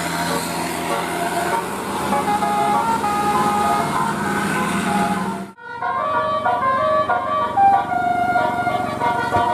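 Bus 'telolet' multi-tone air horns playing a tune of stepped, held notes. The sound breaks off abruptly about five and a half seconds in, and another horn tune starts.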